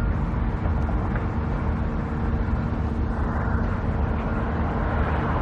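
Steady engine drone with a dense low rumble and a constant hum, unchanging throughout.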